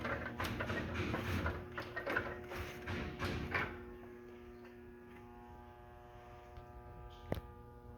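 A steady electrical hum with many even overtones. Over the first three and a half seconds it is masked by louder, busy crackling, and a single sharp click comes about seven seconds in.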